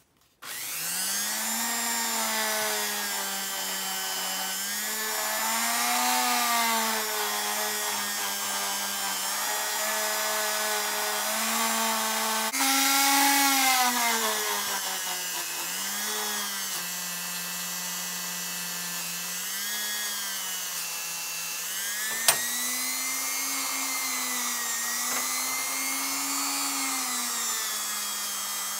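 Handheld rotary tool with a polishing wheel running against the steel comb blade of an old manual hair clipper. Its whine starts about half a second in and rises and falls in pitch throughout. One sharp click sounds a little past twenty seconds in.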